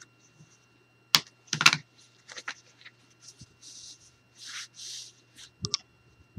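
Thick cardstock and a plastic scraper being handled on a desk. There are sharp clicks and taps about a second in and a few scattered ticks, then two soft rubbing swishes of the card, and a couple more clicks near the end.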